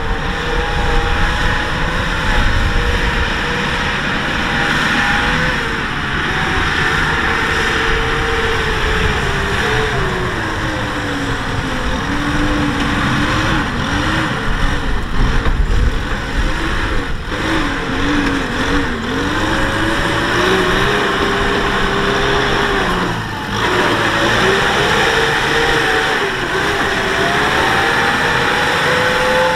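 Kubota M6040SU tractor's diesel engine running under load as it pulls a loaded trailer through mud. Its pitch sags in the middle and climbs back near the end.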